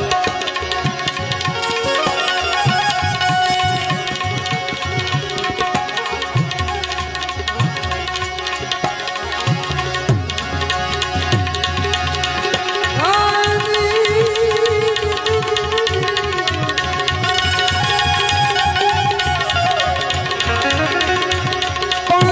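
Instrumental interlude of a live devotional bhajan: tabla keeping a steady rhythm, the low drum's pitch sliding on some strokes, under a held drone and a melodic instrument line.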